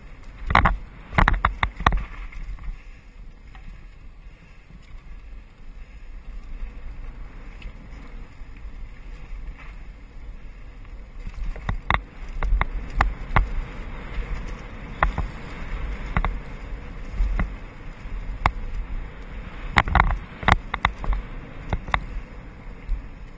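Mountain bike ridden fast down a dirt singletrack: a steady low rumble of wind and tyres on the microphone, with sharp clacks and rattles of the bike over bumps, bunched near the start and through the second half and calmer for several seconds in between.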